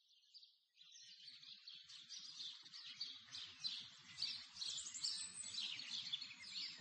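Songbirds chirping, many quick overlapping calls that fade in about a second in and grow louder, with a faint low rumble beneath.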